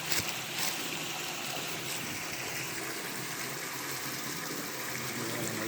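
Waterfall, a steady rush of water falling into a deep gully.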